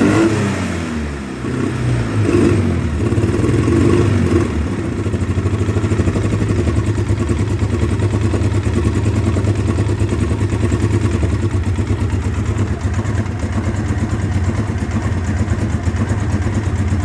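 2009 Polaris Sportsman 800 ATV's twin-cylinder engine, revved unevenly for the first few seconds, then settling into a steady, pulsing idle. It is running rough after sitting for six months, with fuel injection cleaner in the fuel and gummed-up injectors and fouled plugs suspected.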